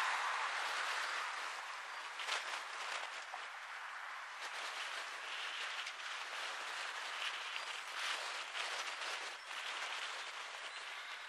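Freight train of box wagons behind a Class 66 diesel locomotive moving slowly over pointwork: a steady rushing noise with irregular clicks and knocks from the wheels.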